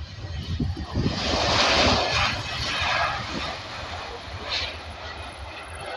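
Jet engines of an Airbus A320-family airliner rolling down the runway, a loud roar that swells to a peak about two seconds in and then slowly fades.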